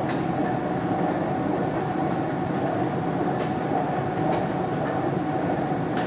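Stockholm metro train running, heard on board: a steady rumble with a held tone and faint clicks now and then.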